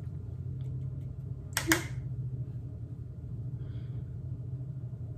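Steady low room hum, broken about a second and a half in by a sharp double click, like a small hard object tapped or knocked.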